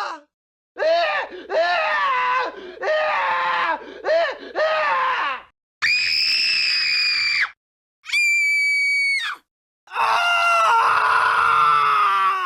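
A string of separate screams with short silences between them. First comes a run of short wavering screams, then two high, steady shrieks a couple of seconds apart, then a long scream that fades out near the end.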